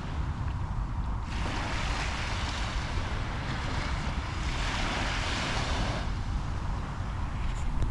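Surf washing onto a sandy beach, one wave's hiss swelling about a second in and dying away near the end, over a steady low rumble of wind on the microphone.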